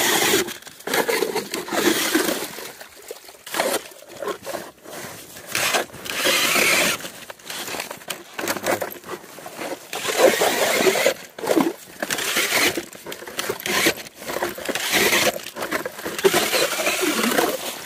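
Ice auger boring through lake ice beside an existing hole, in irregular bursts of crunching and scraping, to join the two holes into one wider opening.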